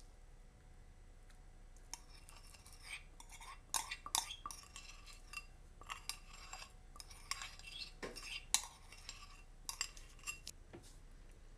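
Metal teaspoon scraping and clinking against a china cup in short, irregular strokes as soaked gelatin is scraped out of it. The strokes start about two seconds in, and one sharper clink comes near the end.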